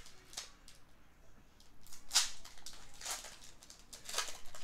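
Handling of a Pokémon card booster pack and its cards: several short, high crinkling rustles, the loudest about halfway through.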